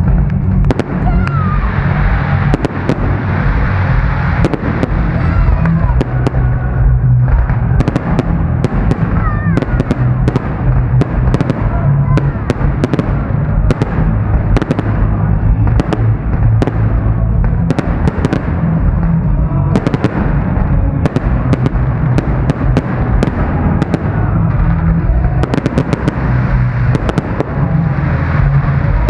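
Fireworks display: shells bursting in a rapid, continuous barrage of sharp bangs over a heavy low rumble, with a few short whistles.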